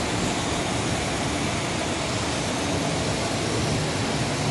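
Model trains running on a large three-rail layout: a steady rolling rumble and hiss with a faint low hum.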